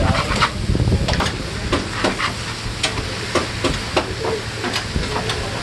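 Two metal spatulas clacking and scraping on a flat steel griddle as chili-coated chicken pieces are turned and spread, over the sizzle of the frying chicken. The scrapes and clacks come irregularly, a couple every second.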